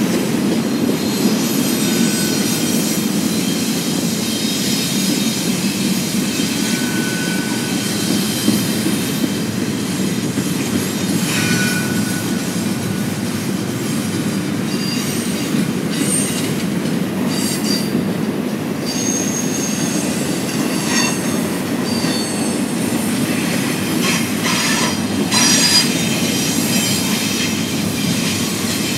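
BNSF double-stack intermodal freight train rolling past: a steady rumble of steel wheels on rail, with short high-pitched wheel squeals now and then.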